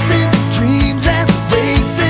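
Music with a steady beat: an instrumental stretch of a pop-rock song.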